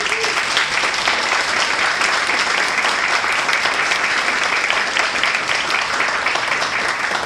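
Audience applauding steadily: many people clapping together in a hall at the end of a talk.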